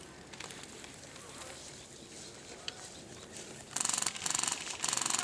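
Airsoft rifle firing three quick full-auto bursts, each about half a second long, near the end, after a few seconds of quiet outdoor background.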